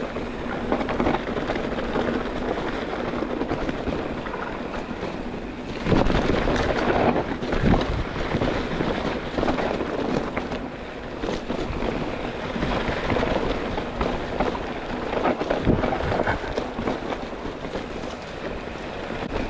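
Mountain bike riding over rough trail: steady tyre rumble with many knocks and rattles from the bike, and wind on the microphone. The knocks get louder and more frequent about six seconds in.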